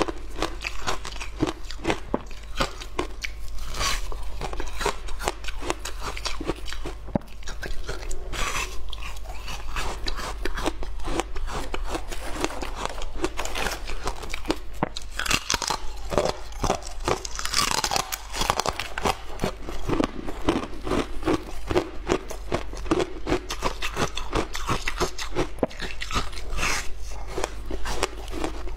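Frozen passion fruit ice being bitten and chewed close to the microphone: a continuous run of many sharp, brittle crunches.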